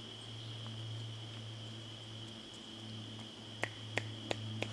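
Footsteps on a woodland trail: a few quick steps, a few tenths of a second apart, begin about three and a half seconds in. Before the steps there is only a steady low hum and a faint steady high tone.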